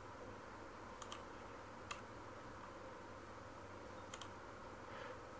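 Faint computer mouse clicks over low room hiss: a quick double click about a second in, a single click near two seconds, and another double click about four seconds in.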